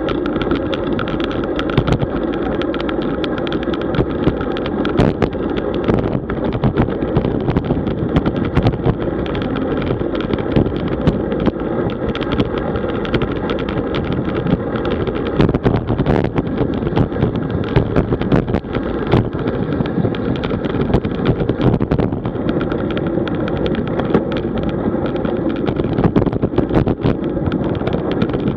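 Rushing wind and tyre/road noise on a camera microphone riding along on a road bike, with frequent small knocks from bumps in the road.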